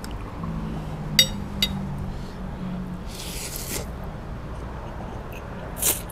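Metal fork and spoon clinking and scraping on a ceramic plate while rice noodles are mixed with curry, with two sharp clinks about a second in. Later come eating noises as forkfuls of noodles go into the mouth, the loudest a short slurp near the end.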